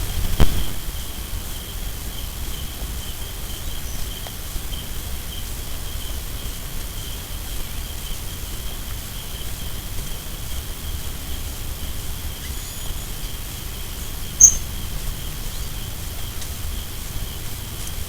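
Forest ambience dominated by insects trilling steadily in one high, pulsing note, over a low rumble. A single short, sharp high chirp stands out about two-thirds of the way through.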